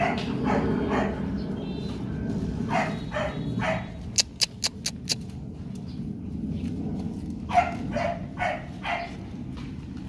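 Rottweiler puppies barking in short yaps during rough play, in two bursts of several barks each. Between the bursts, about four seconds in, comes a quick run of sharp clicks.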